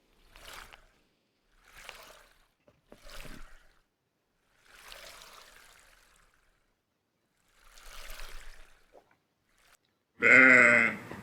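Faint water splashing in five short bursts, as fish stir the surface. Near the end a sheep bleats loudly.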